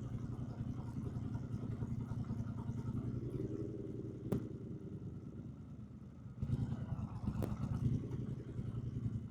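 Triumph Bonneville T120's 1200 cc parallel-twin engine running at low revs with a steady low pulse. It grows louder from about six and a half seconds in as the throttle opens, and there are two sharp clicks, one about four and a half seconds in and one about seven and a half seconds in.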